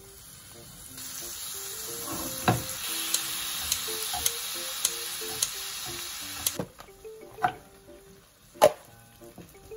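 Soup broth and bean sprouts sizzling in a hot frying pan, with light snips of kitchen scissors cutting the sprouts. The sizzle stops after about six and a half seconds, followed by a few sharp knocks of a utensil and a rice bowl against the pan.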